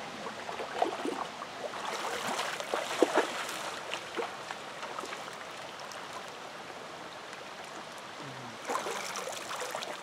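Shallow stream running, with splashing and a scatter of sharp clicks and knocks as a Tac9er multitool shovel digs wet sand and gravel from the streambed; the knocks come mostly in the first few seconds.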